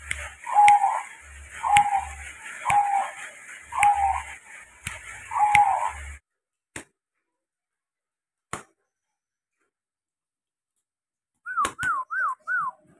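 Zebra dove (perkutut) cooing: a run of short cooing notes, about one every three-quarters of a second, for about six seconds, then the sound cuts off abruptly, leaving two faint clicks. Near the end, four quick whistled notes rising and falling.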